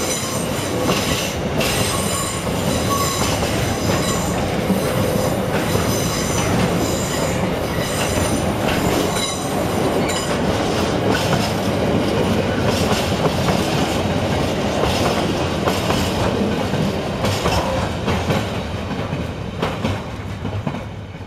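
Intermodal container freight train's wagons rolling past at speed: a steady loud rumble with repeated knocks from the wheels and a high wheel squeal that comes and goes. The noise falls away near the end as the last wagon goes by.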